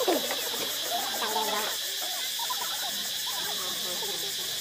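Steady high insect drone, like cicadas in rainforest, under a jumble of short chattering voices that thins out about two seconds in.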